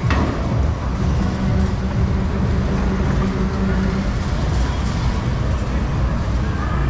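Steady low mechanical rumble of a fairground swing ride running, with a humming tone for a few seconds in the middle. A brief click at the very start.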